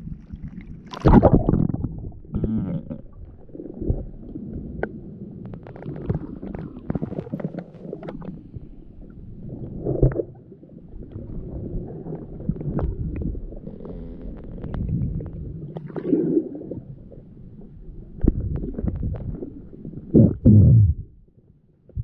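Muffled underwater sound picked up by a submerged camera: uneven low rumbling of water moving around the housing, with scattered clicks and several heavier knocks, the loudest about a second in and near the end.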